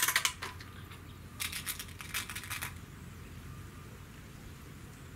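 Diana 48 spring-piston air rifle being cocked with its side lever: a sharp metallic click at the start, then a run of clicks from the cocking mechanism about a second and a half in.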